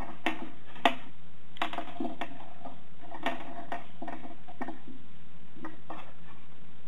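Light, irregular taps and knocks of earphones being handled: earbuds, plugs and cables knocking and dragging on a wooden tabletop, the sharpest tap about a second in, over a steady low hum.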